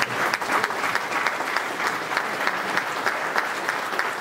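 Audience applauding steadily, with a few close, sharp individual claps standing out.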